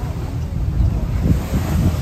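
Wind buffeting the microphone on the deck of a moving boat, a gusty low rumble over the rush of sea water past the hull, a little stronger in the second half.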